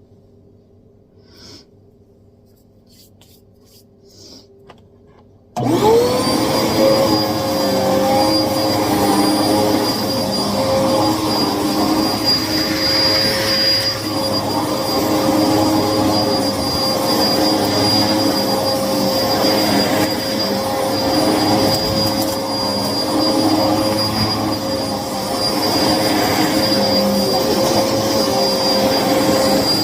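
A few faint clicks, then a Hoover upright vacuum cleaner switches on about five seconds in. Its motor spins up with a quick rising whine and settles into steady running, with a high whine over the airflow. The owner says this vacuum was clogged and never unclogged.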